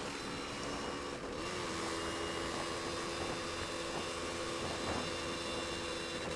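Suzuki Satria 120R's tuned two-stroke single running at high revs at a steady pitch near top speed in sixth gear, mixed with steady wind rush.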